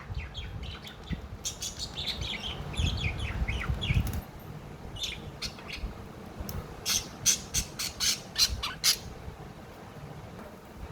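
Budgerigars chattering with short squawks and falling chirps, then, about seven seconds in, a quick run of sharp clicks lasting about two seconds.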